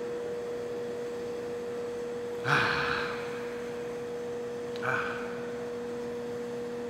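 A man smelling beer from a glass, with two loud sniffs or breaths through the nose, the first and louder about two and a half seconds in, the second near five seconds. Under it runs a steady hum, with a second, lower hum joining near the end.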